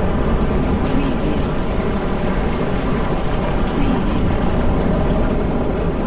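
Dark ambient underground-noise sound design: a dense, steady, deep rumble and vibration, like industrial machinery working beneath the ground. Brief faint high hissy flecks come through about a second in and again about four seconds in.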